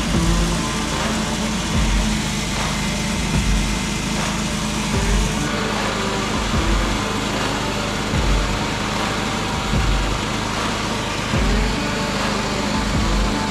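Portable band sawmill's gasoline engine running steadily under load as a new band blade cuts through a log, with a low thump about every second and a half.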